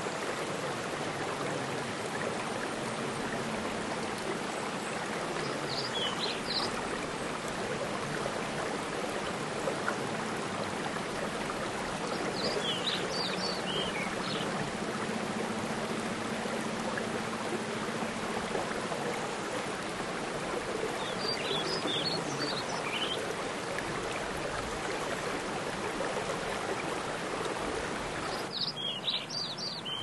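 Steady rush of a mountain stream and small waterfall, with rain falling on the pool. A bird sings a short chirping phrase about every seven seconds.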